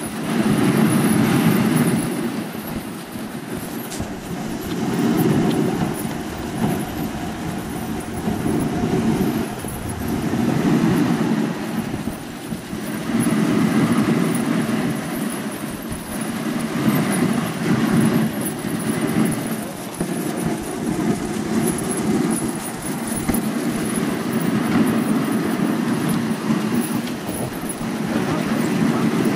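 Continuous noise of a moving dog sled on glacier snow: the runners sliding over the snow track, together with the team running ahead. The sound is a low, rough noise that swells and fades every few seconds.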